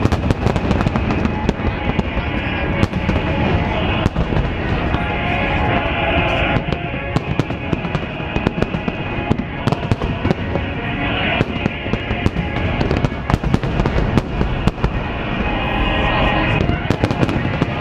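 Dense, continuous barrage of fireworks, loud bangs following one another many times a second with no break.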